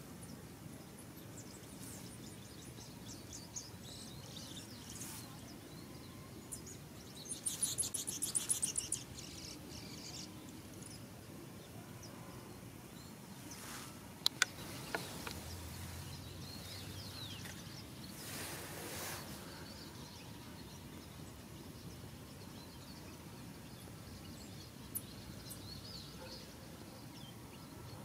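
Outdoor ambience with faint high chirps of small birds. A loud, rapid, evenly pulsed trill comes about seven to nine seconds in, then a few sharp clicks around the middle and a brief hiss a little later.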